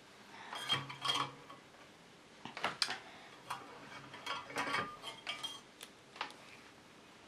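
Small metal soldering tools being handled, clicking and clinking lightly in a few short clusters.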